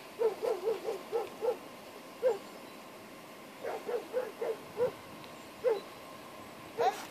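A dog gives short, pitched whining yelps in quick runs of several a second, with pauses between. It is the excited whining of a dog held in a down-stay while it waits to be called.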